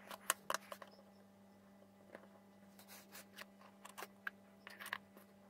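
Faint room tone with a steady low hum and a dozen or so light clicks and taps, scattered irregularly.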